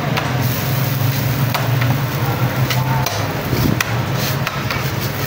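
Sandwiches being worked on a steel flat-top griddle: scattered light clicks and knocks of hands and utensils against the plate, over a steady low hum.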